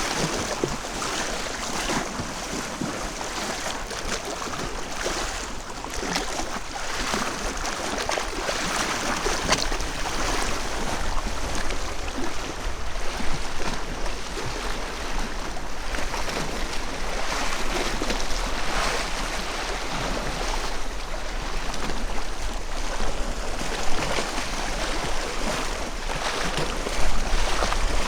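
Wind blowing and small waves washing on a lake shore, a steady surging noise with a constant low rumble underneath, recorded through a microphone inside a Rode Blimp windshield.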